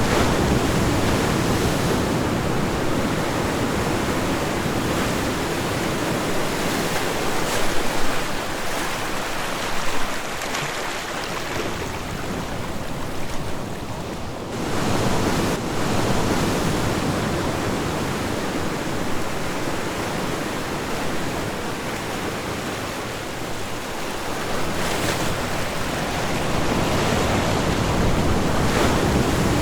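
Ocean surf washing onto a beach, a steady rush of breaking waves that swells and eases, with a brief lull about halfway through.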